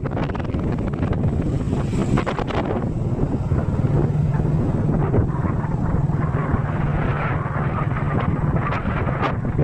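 Vehicle engine running steadily at road speed with road noise, and wind buffeting the microphone, strongest about two seconds in.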